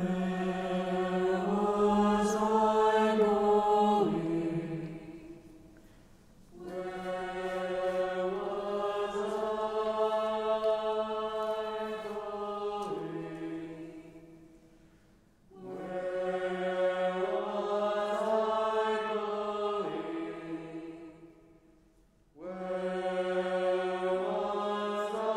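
Unaccompanied choir singing long sustained chords in four phrases, each swelling in, shifting chord once and fading out, with brief near-silent gaps between them.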